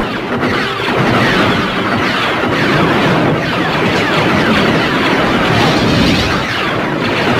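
Hand-held Roman candles and other fireworks firing back and forth, a loud, dense, unbroken crackle and hiss of many shots.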